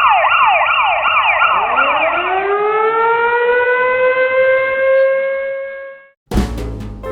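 Siren: a fast warbling yelp for about two seconds, then a single tone that slides up, holds and fades out. Piano music starts near the end.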